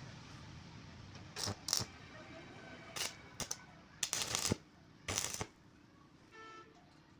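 Stick welding: several short bursts of arc crackle, each lasting from a fraction of a second to about half a second, as the rod is struck for brief tack welds.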